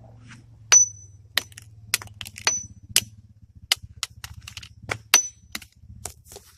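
A hammer striking a flip phone on brick steps about a dozen times, roughly two blows a second. The hits are sharp cracks, and a few leave a brief high metallic ring.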